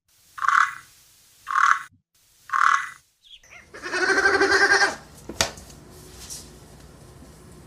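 Three short raspy animal calls about a second apart, then one long, wavering bleat from a farm animal lasting about a second, followed by a single sharp click.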